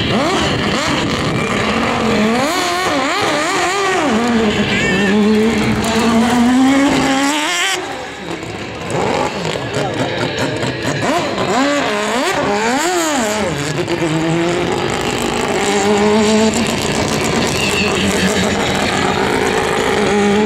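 Mazda 787B race car's four-rotor rotary engine revving hard and falling away again and again as the car accelerates and slows through tight turns. About eight seconds in it drops briefly, then comes back with a run of quick rising and falling revs.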